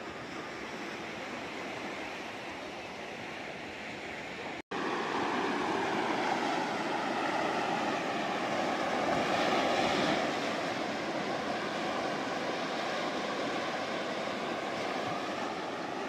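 Sea surf: waves breaking and washing up over sand and rocks at the water's edge. The sound cuts out for an instant about five seconds in and comes back louder, swelling once near the middle.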